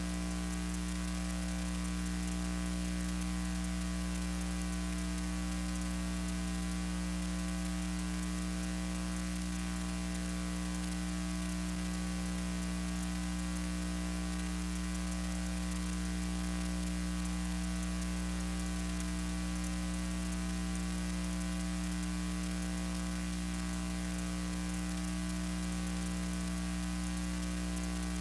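Steady electrical mains hum with a layer of hiss, the noise floor of a silent archival film transfer; no aircraft sound is heard.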